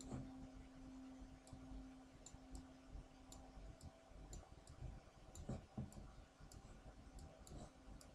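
Faint computer mouse clicks, about fifteen at irregular spacing, over a low steady hum that fades out about halfway through.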